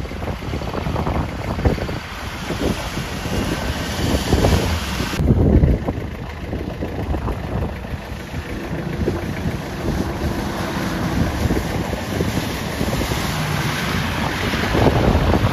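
Wind buffeting the microphone over the running noise of a 4x4 driving off-road, with a sudden change in the sound about five seconds in.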